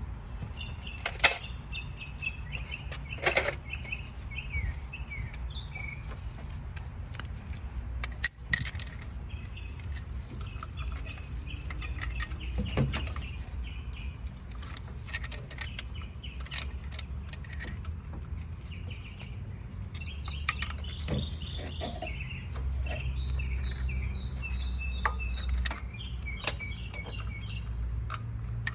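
Metal tools clinking and tapping now and then against bolts in an engine bay as the water pump pulley bolts are worked loose. Small birds chirp in short runs over a low steady rumble.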